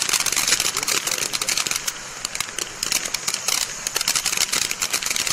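Aladdin's Cave firework fountain spraying sparks with a dense, steady crackle of many small pops, easing slightly midway.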